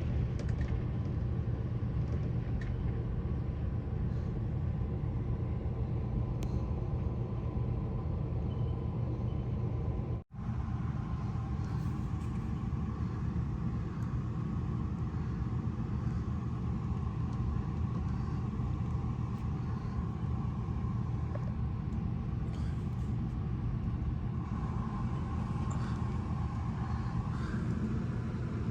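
Dust storm wind making a steady, heavy low rumble, with a brief dropout about ten seconds in.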